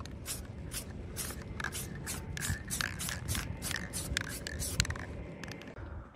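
Aerosol spray paint can sprayed in quick short bursts, about three hisses a second, onto a freshly wire-wheeled metal plate frame. The bursts stop about five seconds in.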